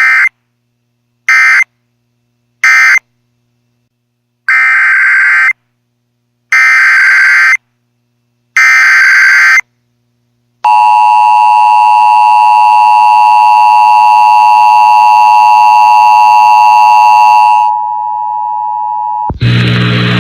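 Emergency alert broadcast signalling: three short screeching digital data bursts (the end-of-message code), then three longer data bursts (the header of the next warning), then a loud steady electronic alert tone for about seven seconds. The alert tone drops to a single plain tone, and a burst of static comes near the end.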